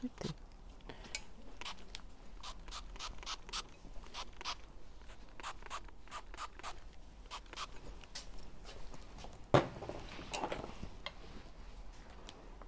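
Trigger spray bottle of grooming lotion pumped over and over onto a terrier's wiry coat, a quick irregular run of short hissing spritzes, wetting the coat before it is brushed. A single knock comes about two-thirds of the way through, followed by a second of rustling.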